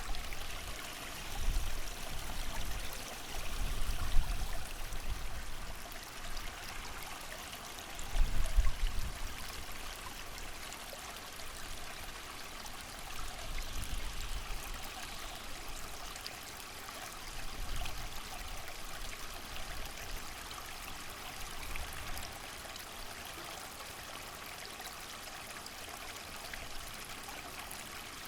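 Creek water running steadily, with low gusts of wind rumbling in every few seconds, strongest in the first ten seconds and calmer toward the end.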